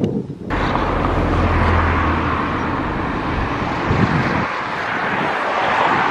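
Steady outdoor rumble and hiss that starts abruptly about half a second in, with a heavy low rumble for the first couple of seconds.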